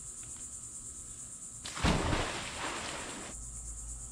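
A person jumping into a swimming pool: a sudden splash with a low thump about two seconds in, lasting over a second, with a low rumble of stirred water after it.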